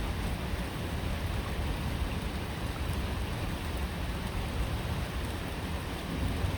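Steady rain falling, a continuous even hiss with faint scattered drop ticks and a constant low rumble underneath.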